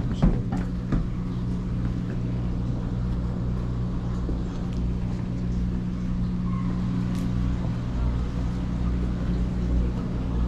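Steady low electrical hum with room noise, as from the running equipment of aquariums and terrariums, with a few light knocks in the first second.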